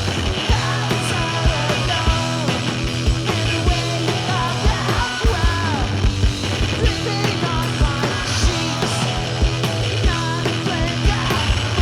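Rock band playing loudly, with a fast, steady drum beat, held bass and guitar notes, and a singing voice.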